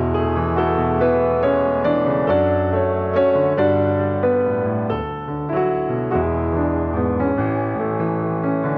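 Background music: a soft piano melody with sustained chords.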